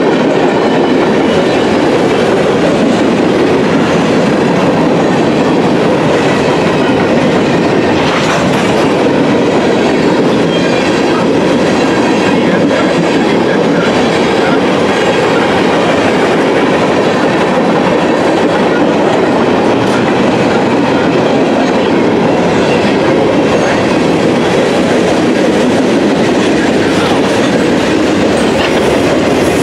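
Freight cars of a long mixed train rolling past close by: a steady, loud rumble of steel wheels on the rails that does not change, with a few faint clacks scattered through it.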